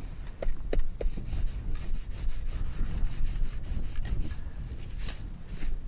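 A kayak hull scraping along thin skim ice: a continuous rasping rub with a low rumble, and a few short sharp cracks in the first second.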